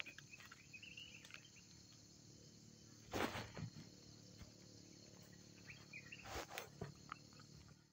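Faint forest ambience: a steady insect drone, with short high chirping calls about a second in and again around six seconds, and two brief soft bumps at about three and six and a half seconds.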